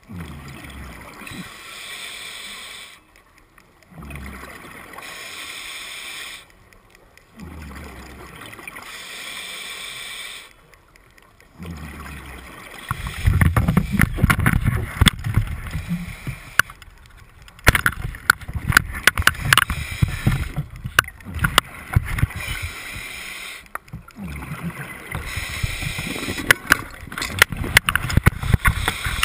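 Underwater water noise heard through a speargun-mounted GoPro's housing. It comes first as bursts of bubbling hiss a few seconds apart, then from about halfway as louder rough rumbling with many sharp crackles and clicks.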